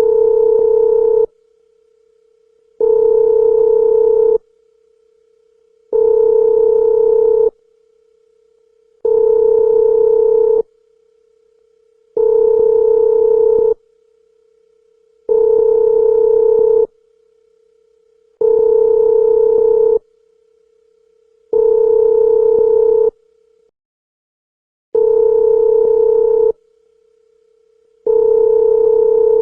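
Telephone ringback (calling) tone: a steady single-pitched beep about a second and a half long, repeating after about a second and a half of pause, the tone heard while waiting for the other end to pick up.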